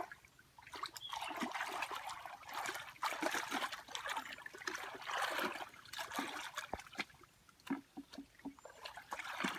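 Muddy water sloshing and splashing as hands grope through a shallow mud pool for fish, coming in repeated surges with small wet clicks.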